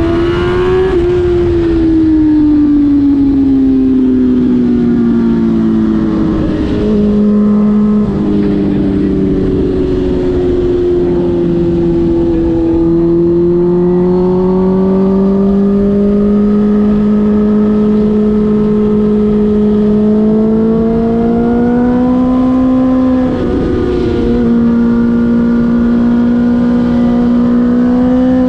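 Suzuki GSX-R1000 K5's inline-four running loud through an aftermarket exhaust with the dB-killer removed, heard from the rider's seat on the highway. The engine note falls steadily for the first several seconds and breaks briefly twice, around seven and eight seconds in. It then holds a steady drone that climbs slowly and breaks once more near the end.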